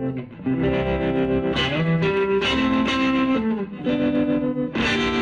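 Electric guitar playing a run of held chords, changing about once a second, through a motor-driven rotating speaker (Leslie effect), which makes the sound waver and pulse quickly in level.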